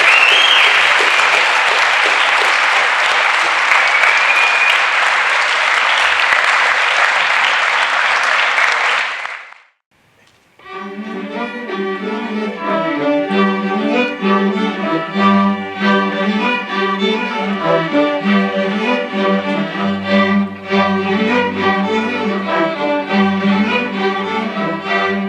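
Audience applauding, with a couple of whistles, until it stops sharply about ten seconds in. After a brief silence, a student string orchestra of violins and cellos starts playing.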